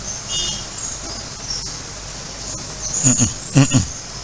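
Insects, likely crickets, chirping steadily at a high pitch over background hiss. A man's voice speaks briefly near the end.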